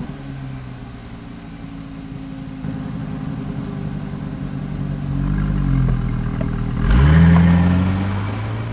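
Car engine running steadily at idle, then revved hard about seven seconds in, its pitch climbing before it eases off.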